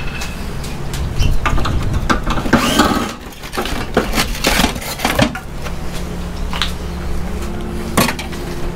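Irregular metallic clanks, knocks and scraping as the finned copper-tube coil of an air conditioner is worked loose and pulled out of its sheet-steel chassis.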